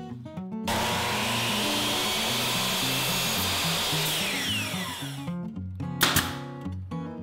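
Power miter saw cutting a piece of quarter-round molding, running for about four seconds, its whine falling as the blade spins down. About six seconds in, a nail gun fires one or two sharp snaps, fastening the molding. Background music throughout.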